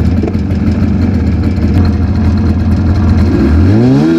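Polaris Indy Lite 340 snowmobile's small two-stroke engine running at a steady idle with the hood up, then revved once about three and a half seconds in, its pitch rising sharply and dropping back near the end. The engine has just been checked and shows rather low compression.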